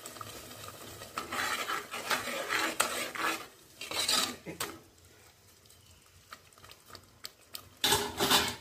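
Perforated steel spoon stirring and scraping a thick masala in an aluminium pressure cooker, in bursts, quieter through the middle, with the loudest clatter of spoon against pot near the end.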